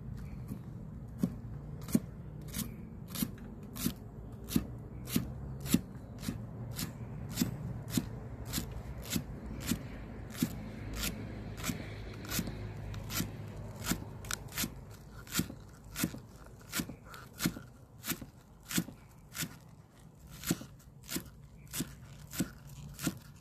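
Knife chopping food on a cutting board in steady, even strokes, about three every two seconds.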